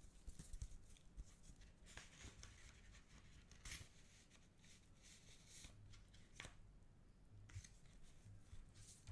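Faint rustling and sliding of glossy photo postcards and photocards being shuffled by gloved hands: soft papery swishes every second or so, with sharper flicks of a card about three and a half and six and a half seconds in.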